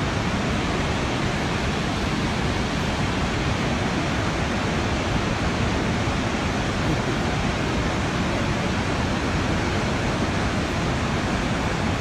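Barron Falls in full flood: a steady, loud roaring of floodwater plunging into the gorge, unbroken throughout.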